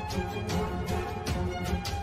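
Background music with sustained notes and a few sharp percussion hits.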